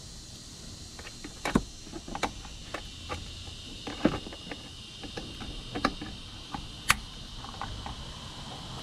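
Irregular small clicks and knocks of hand work on the upper radiator hose and its metal hose clamp, with a few sharper clacks among them.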